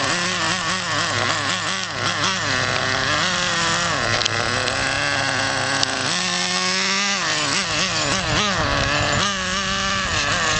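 Traxxas Nitro Rustler's TRX 2.5 two-stroke nitro engine running at a high buzzing note, revved up and down over and over.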